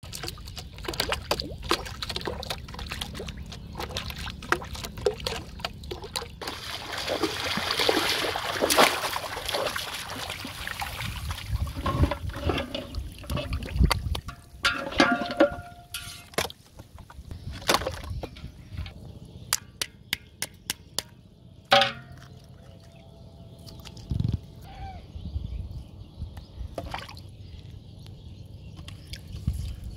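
Shallow water splashing and sloshing around a floating plastic bottle and a person wading, with many quick clicks early on giving way to scattered sharp knocks.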